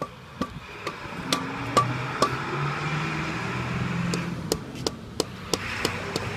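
Sharp taps and knocks at irregular intervals, a dozen or so, some of the early ones with a short metallic ring: a hand tool tapping at the base of a precast concrete post as it is set in place.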